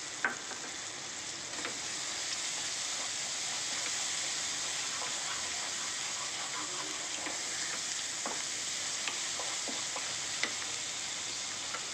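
Small onions, tomato and coriander leaves sizzling in sesame oil in an aluminium pressure cooker pan, stirred with a wooden spatula. The spatula knocks and scrapes against the pan a few times, sharply just after the start.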